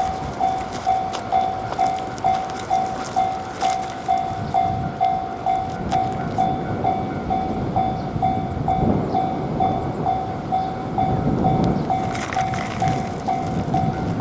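Japanese level-crossing warning bell ringing its repeating electronic "kan-kan" tone about twice a second, while a train runs past with a low rumble and clacks of wheels over rail joints.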